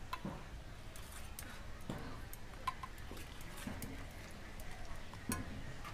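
Steel spoon clicking and scraping against a stainless steel bowl while stirring biscuit crumbs with milk, with a few scattered clicks over a low background rumble.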